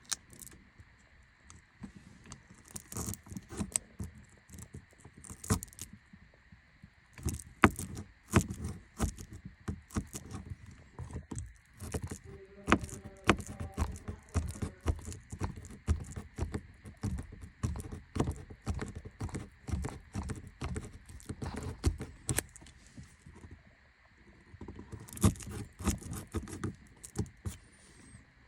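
Irregular clicks, knocks, scrapes and light rattles of hands and tools working on the car's interior trim and fittings, with short pauses in between.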